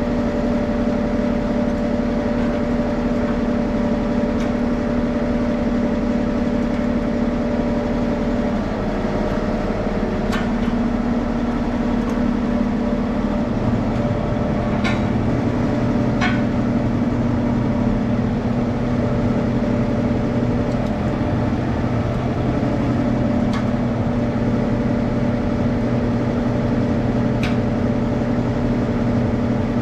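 An engine running steadily, its note shifting a little about nine seconds in and again a few seconds later, with a few sharp clicks over it.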